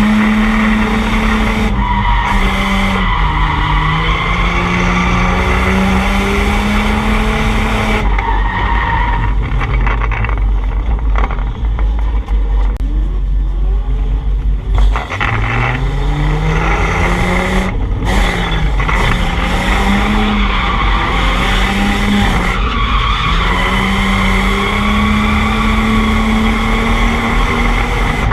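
Drift car's engine held high in the revs, its pitch rising and falling with the throttle, over continuous tire squeal as the car slides. About halfway through the revs drop and the squeal eases, then the engine climbs back up and the tires squeal again.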